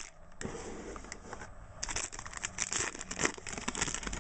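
Trading-card pack wrapper crinkling and tearing as it is opened by hand, a run of quick crackles with brief pauses.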